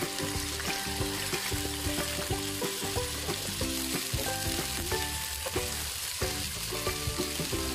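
Chicken drumsticks frying in hot oil in a nonstick pan: a steady, dense sizzle as more drumsticks are laid in.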